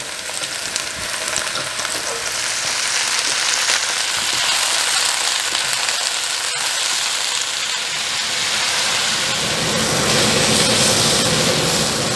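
Sliced yellow onions frying in hot olive oil in a large skillet on high heat, a steady sizzle that grows louder as the onions go in, stirred with a spatula.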